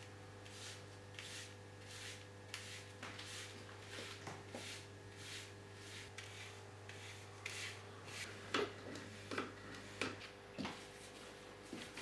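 A bristle brush swept repeatedly across a lithography stone, dusting powder over the drawn image: soft rustling strokes about one or two a second. Between about eight and eleven seconds in come a few sharper, louder taps and knocks.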